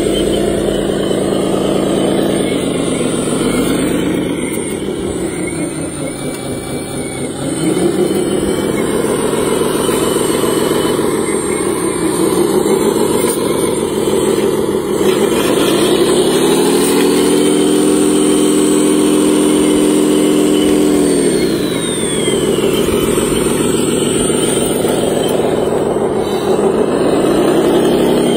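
Radio-controlled hydraulic wheel loader's motor running as it pushes into a dirt pile and lifts its bucket. The pitch rises and falls repeatedly and is held high for several seconds in the middle.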